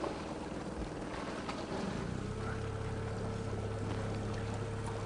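Jet boat engine running; about two seconds in its note rises to a steady, even hum, over the rush of river water.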